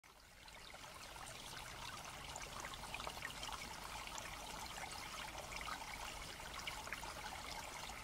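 Faint trickling water, fading in at the start: a steady patter of small splashes with no single loud event.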